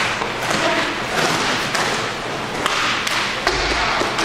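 Inline hockey play: several sharp knocks of sticks and puck, spread unevenly, over a steady rink din.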